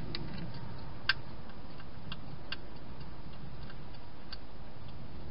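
A wild hedgehog crunching dry food inside a plastic feeding station: irregular sharp clicks, one louder about a second in, over a steady low hum.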